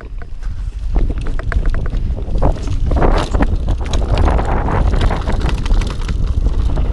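Wind buffeting the camera microphone as a Mondraker mountain bike rolls over a dirt trail, with frequent rattles and knocks from the bike over bumps. It gets louder in the first second as speed picks up.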